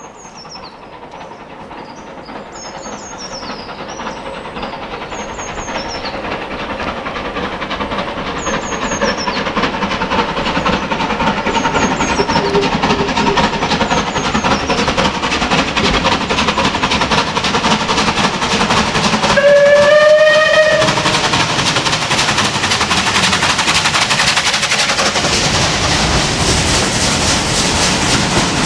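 Bulleid Battle of Britain class steam locomotive approaching under steam, its exhaust beats growing steadily louder as it nears. About two-thirds of the way through it gives one short whistle, then passes close with loud exhaust and rail noise. Birds sing faintly over the first few seconds.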